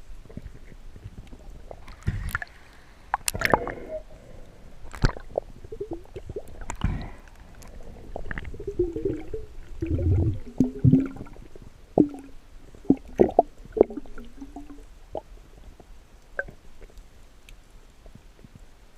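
Water gurgling and bubbling around an underwater camera, with scattered sharp clicks and knocks, busiest in the middle.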